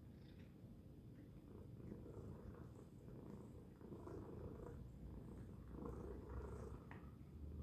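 Tabby cat purring, a steady low rumble that swells and eases about every two seconds.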